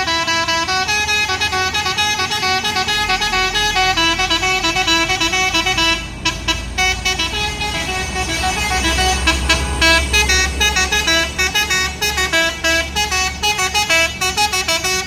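A multi-tone musical vehicle horn playing a quick melody of stepping notes, turning choppy and broken about halfway through. Underneath much of it is the low rumble of a heavy vehicle's engine.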